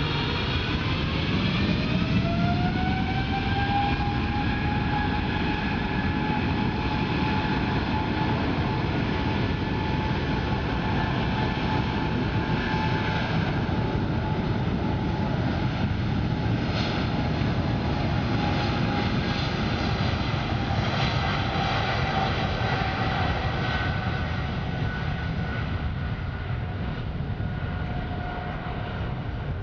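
Boeing 777's twin GE90 turbofans spooling up to takeoff thrust: a whine rising in pitch over the first few seconds, then a steady heavy rumble with a high whine as the jet accelerates down the runway. The whine drops slightly in pitch near the end as the airliner moves away.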